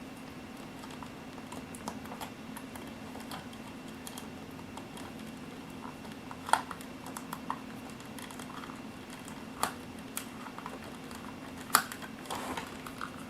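Scattered light clicks and knocks of a screwdriver and hands working at the battery-cover screw on the underside of a die-cast metal RC loader, with three sharper clicks spread through, over a steady low hum.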